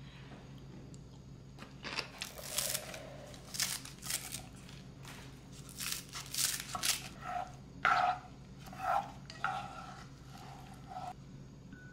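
Crinkling and rustling of something being handled, in a string of short bursts, with a few brief higher-pitched clinks in the second half.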